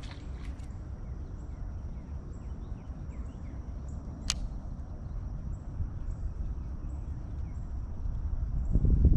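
Steady high trill of insects with evenly repeating short pulses above it, over a low outdoor rumble that swells near the end. There is one sharp click about four seconds in.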